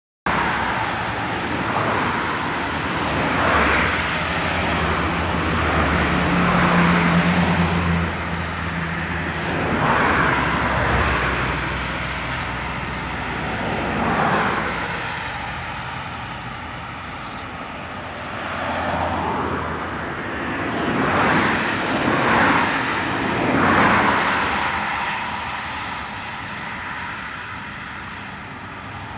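Road traffic: vehicles passing one after another, each swelling up and fading within a few seconds, with a low engine hum for a few seconds near the start.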